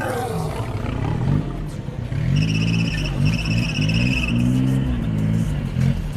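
Small off-road vehicle's engine revving up and down as it crawls over a steeply cambered section, the pitch rising and falling several times. A high trilling whine joins in for about two seconds in the middle.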